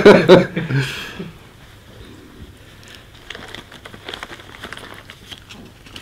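A laugh fading out in the first second, then soft rustling and light clicks of paper sheets being handled.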